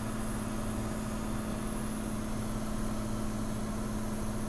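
Cirrus SR20's six-cylinder Continental engine and propeller droning steadily, heard inside the cabin, with the engine throttled back to about 2170 rpm.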